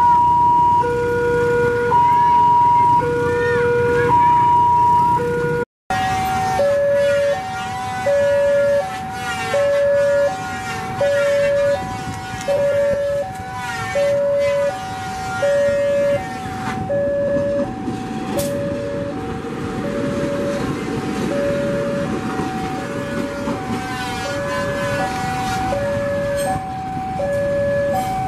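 Railway level-crossing warning alarm sounding a regular two-tone alternation, cut about six seconds in to a different, faster two-tone alarm. Under it a CC 203 diesel-electric locomotive rumbles as it runs past, swelling in the middle.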